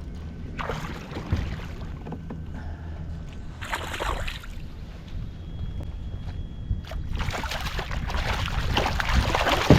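Water splashing and sloshing against a kayak in short bursts, about a second in and again around four seconds, then more steadily and louder over the last few seconds, over a low wind rumble on the microphone.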